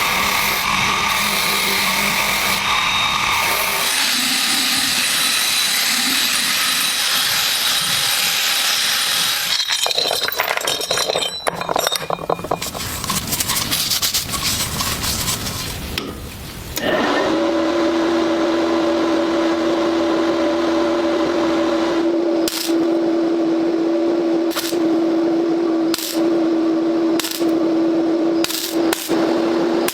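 A run of power-tool work on metal parts. First comes a steady grinding or brushing noise, then irregular scraping and clicking. About seventeen seconds in, a small motor starts running with a steady hum and is interrupted briefly several times near the end.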